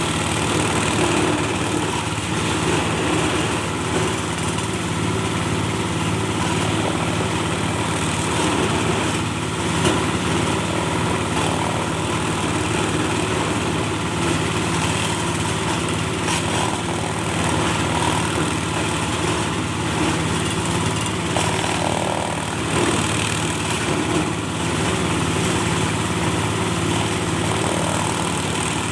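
Cocopeat machine for grinding coconut husk, run by a small engine, running steadily at constant speed.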